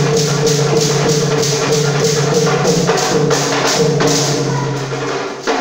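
Folk dance music led by a double-headed barrel drum: sharp strikes about four times a second over held low tones. Near the end the rhythm breaks off for a moment with one sharp hit, then picks up again.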